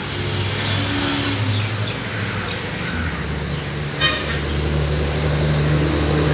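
Road traffic: a motor vehicle's engine running with a steady low hum that changes pitch about three seconds in, and a brief sharp sound about four seconds in.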